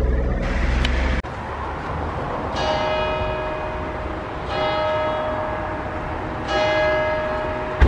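Low traffic rumble for about the first second, then a church bell struck three times about two seconds apart, each stroke with the same pitch and ringing on into the next. A single sharp click comes near the end.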